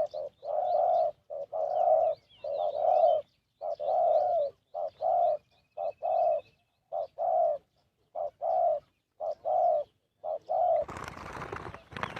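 Spotted dove cooing in repeated phrases of short and longer coo notes, with faint chirps of small birds above. Near the end the cooing stops and a rough rustling noise with a few clicks takes over.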